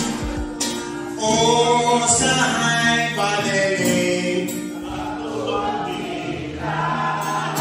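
A man singing live, accompanying himself on a strummed acoustic guitar; his voice comes in about a second in with long held notes over the guitar.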